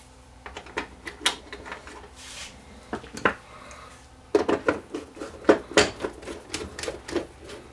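Small metal screws clicking as they are handled, then a hand screwdriver driving screws into the plastic back cover of a 1965 GE black-and-white TV. The driving is a rapid run of clicks and scrapes from about four seconds in.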